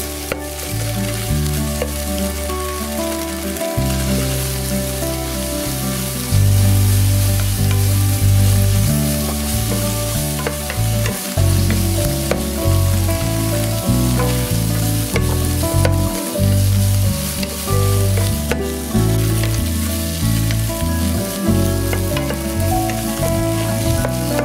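Shrimp and sliced satsuma-age fish cakes sizzling in hot olive oil with garlic in a frying pan, stirred and turned with a wooden spatula.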